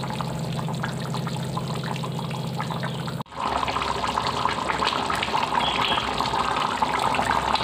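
Thick mutton curry bubbling and popping as it simmers in a pan on a gas stove. There is a steady low hum under it for the first three seconds. The sound breaks off and resumes about three seconds in, with the bubbling denser and louder after.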